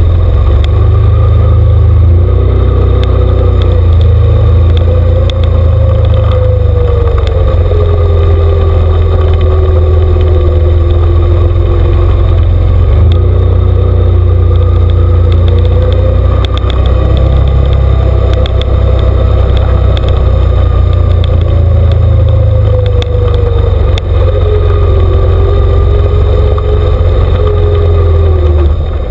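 ATV engine running under load through shallow water, its pitch rising and falling with the throttle over a steady low rumble.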